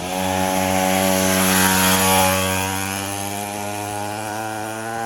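Mini moto's small two-stroke engine running at high revs, a steady buzzing note that swells about two seconds in, then eases slightly.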